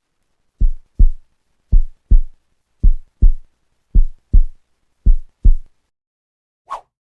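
Heartbeat sound effect: five deep double thumps, lub-dub, about one beat a second, marking a pounding heart. A short, higher sound follows near the end.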